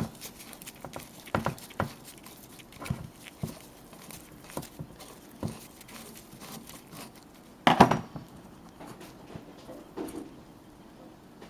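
Small metal carburettor parts (screws and jets) being handled and set down on a workbench: scattered light clicks and taps, with one louder clatter about eight seconds in.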